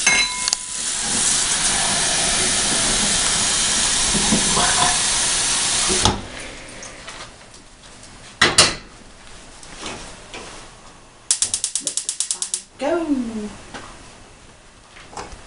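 Kitchen tap running water into a metal pot for about six seconds, then shut off; a single knock follows a couple of seconds later. Near the end a gas range's burner igniter clicks rapidly, about nine clicks a second for over a second, as the burner under the pot is lit.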